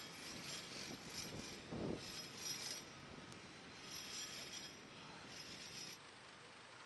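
Faint city street ambience in the snow: a steady hum of distant traffic, with a few brief high-pitched squeals and clinks and a dull bump about two seconds in.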